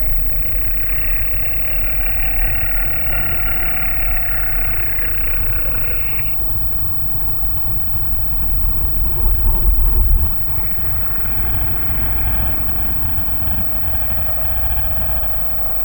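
Sound-designed horror ambience: a deep, rumbling monster growl over a dark layered drone, swelling to its loudest just before ten seconds in and then dropping back suddenly.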